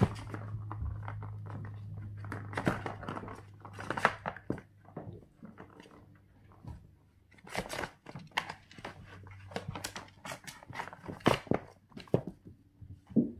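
Kittens batting a ball around a plastic cat track toy: irregular clicks and knocks of the ball and paws against the plastic. A low steady hum runs under the first half.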